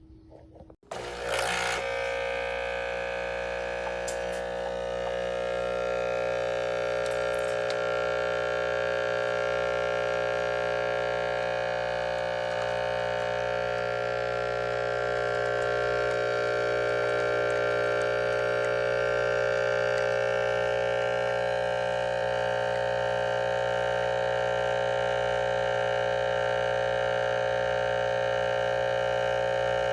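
ChefWave capsule espresso machine's 20-bar pump running while brewing a shot: a steady hum with a buzz that starts suddenly about a second in and holds without a break.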